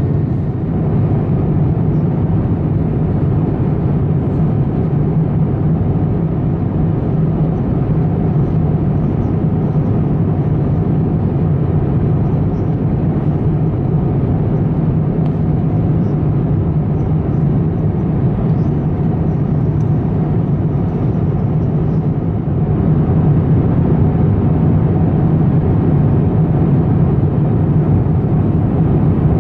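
Steady in-flight cabin drone inside an Airbus A350: engine and airflow noise from its Rolls-Royce Trent XWB turbofans, heard as a deep rumble that grows a little louder about 22 seconds in.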